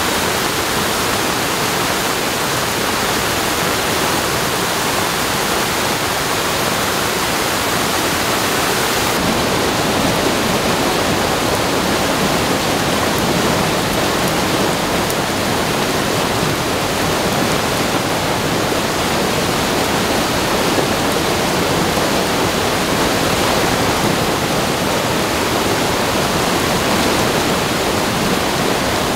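Loud, steady rushing of water, a continuous even roar with no distinct splashes or impacts.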